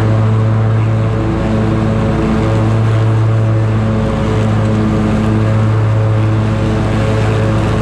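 Scag Tiger Cat zero-turn mower running steadily while cutting grass: the engine and the 61-inch deck's spinning blades make a continuous low drone.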